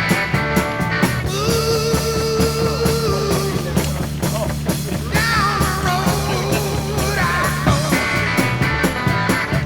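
Rock music soundtrack. A steady beat eases off after about a second, giving way to held, wavering notes, and returns near the end.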